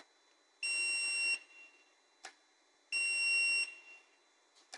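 Conveyor metal detector's alarm buzzer sounding two steady electronic beeps, each about three-quarters of a second long, with a short click between them. The alarm signals that metal has been detected passing through the detector head.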